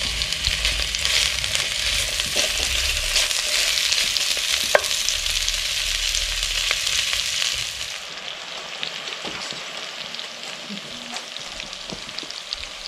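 Sliced sucuk and Mettenden sausages sizzling in hot oil in a cast-iron Dutch oven, with light clicks and scrapes of a wooden spatula stirring them. About eight seconds in the sizzle drops to a quieter level.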